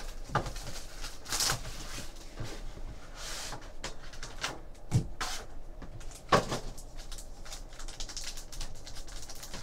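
Hands opening a cardboard 2012-13 Panini Limited Hockey box and handling the foil-wrapped card pack inside: scattered taps, scrapes and crinkling rustles, a few of them louder.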